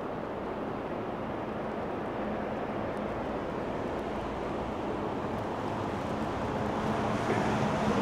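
Steady rushing outdoor ambience in rain, with no distinct events; a faint low hum joins in and the level rises slightly near the end.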